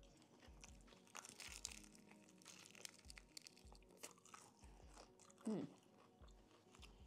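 Quiet close-up eating sounds: the crispy breaded crust of fried chicken crackling as it is bitten and chewed. A short sliding tone comes about five and a half seconds in.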